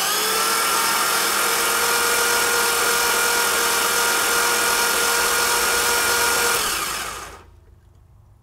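LS V8 engine spun over on its starter for a compression test of one cylinder that reads low: a steady whirring spin that starts suddenly and winds down about seven seconds in.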